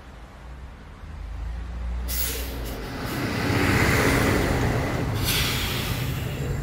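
City bus sound effect: a low engine rumble builds up. About two seconds in, a loud hiss of air like an air-brake release starts suddenly, then cuts off sharply about five seconds in.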